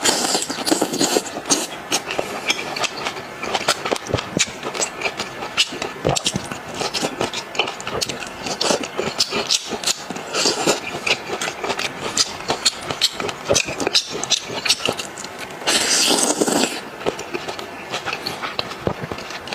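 Close-miked mukbang eating sounds of marinated seafood (laozhi seafood): a dense run of wet crunches, clicks and chewing. A longer hissing burst comes about sixteen seconds in.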